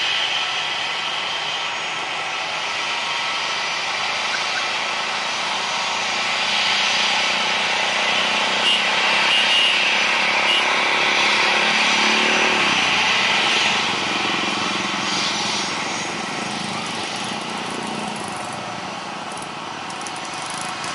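Small motorcycle engines passing close by, one after another, over the steady whine of an Airbus A320's jet engines at taxi power. The noise swells about halfway through and a passing engine's pitch dips and rises a little after that.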